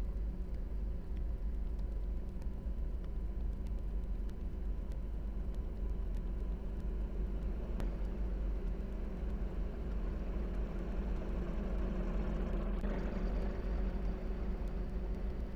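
A steady, unchanging low rumbling noise, heaviest in the deep bass, with a faint constant tone above it.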